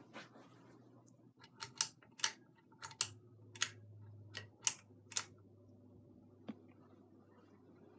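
Quorum 52-inch ceiling fan running with a low, steady motor hum, over a quick irregular series of about ten sharp clicks in the middle. One more click comes a little later. The hum's low note strengthens partway through.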